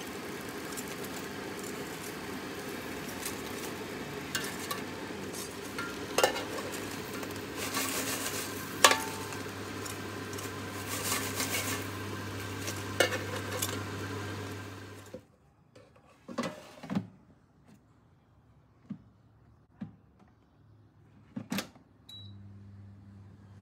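Tongs clacking and scraping against the air fryer's perforated basket as tofu cubes are turned, over the fryer's steady fan hum, which stops about two thirds of the way through. After a quiet stretch with a few knocks, the basket is pushed back in with a knock, a short high beep sounds and the fan hum starts again.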